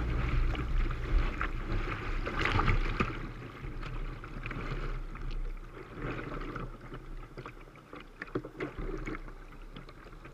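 Whitewater rushing around a kayak running a rapid, with scattered splashes against the boat. Louder in the first three seconds, then falling off.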